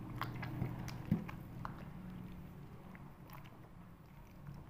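Hand squeezing and kneading wet rice-flour dough in a glass bowl: soft, irregular squelching and clicking, with one louder knock about a second in.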